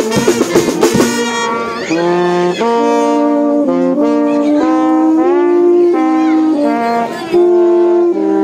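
Brass band of trumpets, trombones and saxophones playing, with drums for about the first second; then the horns hold sustained chords that change every second or so.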